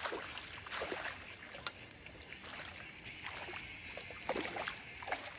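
Irregular splashing and sloshing at the water's edge as a hooked barbel is drawn into a landing net, over the steady rush of the river. One sharp click about a second and a half in.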